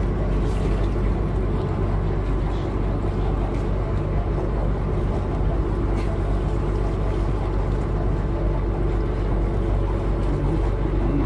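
A cruise boat's engine running steadily underway, a low even hum under a constant wash of noise.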